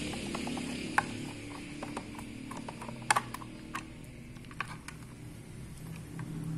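Scattered clicks and light knocks of a plastic analog multimeter case being unscrewed and its back cover pried off.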